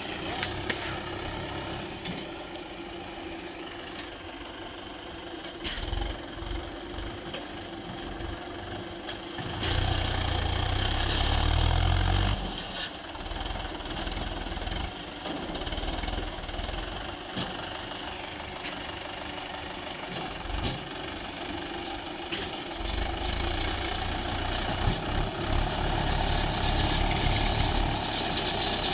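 Swaraj tractor's diesel engine running under load as it pulls a fully loaded trolley through soft sand, getting louder and deeper for a couple of seconds about a third of the way in and again for several seconds near the end.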